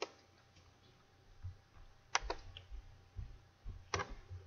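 Three sharp clicks at a computer, about two seconds apart, with soft low thumps on the desk between them.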